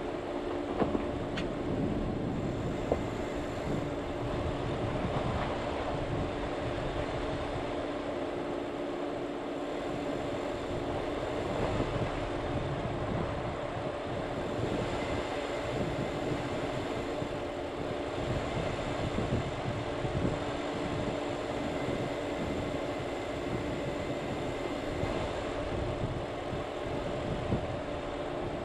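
Vehicle driving on a dirt road: a steady drivetrain hum over a rumble of tyres on the unpaved surface, with two sharp clicks in the first few seconds.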